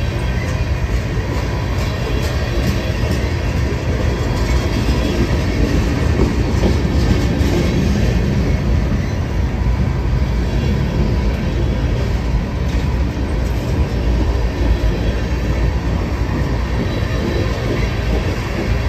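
Norfolk Southern freight cars rolling past, a steady heavy rumble of wheels on rail with scattered clicks and clacks, most of them in the first half.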